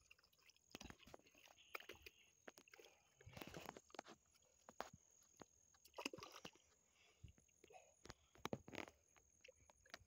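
Faint, irregular wet squelches, slaps and clicks of bare hands scooping mud and muck out of a small water-filled hole in the ground.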